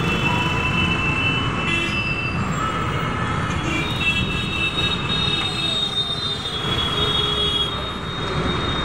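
Steady road-traffic rumble with high, level squealing tones that start and stop every few seconds over it: metro train wheels squealing on the elevated track overhead.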